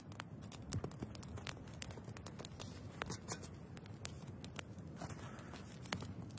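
Wood campfire crackling, with irregular small snaps and pops.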